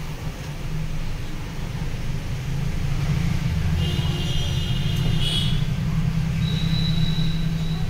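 Steady low rumble of background noise that grows louder a few seconds in, with a brief cluster of high tones in the middle and a thin high whine starting near the end.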